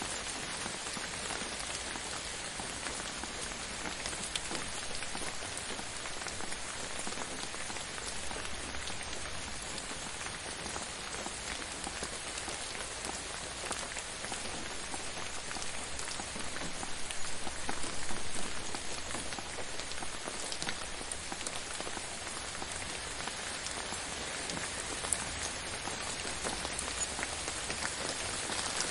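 Steady rain falling on a surface, a dense even patter of drops with individual drop ticks, swelling a little louder about two-thirds of the way through.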